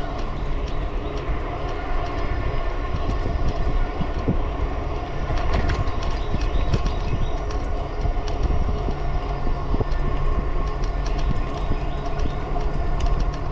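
Riding noise of an electric cruiser bike at about 20 mph on pavement: a steady, heavy rumble of wind on the microphone and tyres on the path, with a steady hum and scattered small clicks and rattles.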